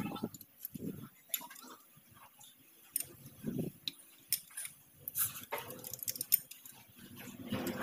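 Combination wrench clinking against the bolts of a John Deere tractor's rear axle housing as they are turned, with scattered light metallic clicks. Two short, low sounds come about a second in and again about three and a half seconds in.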